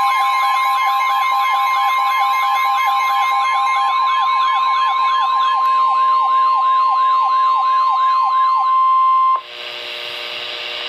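NOAA Weather Radio warning alarm tone, a steady 1050 Hz beep, layered over electronic sirens wailing up and down about three times a second. Near the end the tone and sirens cut off suddenly, leaving radio static.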